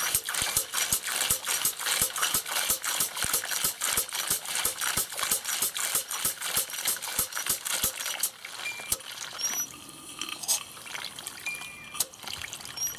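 Model steam-driven water pump running, its mechanism clicking rapidly and evenly while water splashes from its outlet hose into a plastic tub. After about eight seconds the clicking thins out and the splashing dies away.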